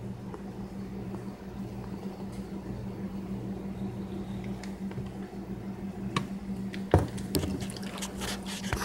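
Used cooking oil pouring slowly from a glass jar into a mesh strainer, over a steady low electrical hum. A few sharp knocks about seven seconds in and near the end as the jar is handled and set down on the counter.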